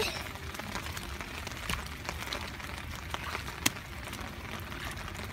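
Steady rain falling on wet ground, with a few scattered clicks and one sharp click a little over three and a half seconds in.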